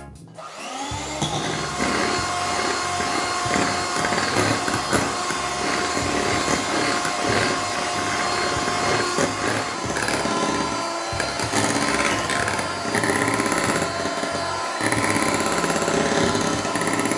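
Electric hand mixer whipping cream in a glass bowl: the motor starts about half a second in with a rising whine, then runs steadily as the beaters churn the thickening cream.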